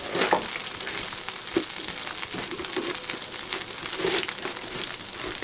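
Steady frying sizzle, with the crinkle and crunch of a paper mache egg shell being cracked open and pulled apart over the pan.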